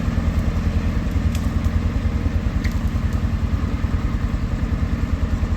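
A vehicle engine running steadily with a fast, even pulse, close and loud, with a few light clattering ticks.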